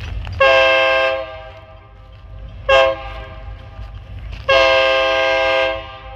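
Freight locomotive horn on an EMD SD40 sounding for a grade crossing: a long blast, a short blast, then another long blast. Each blast is a chord of several steady tones.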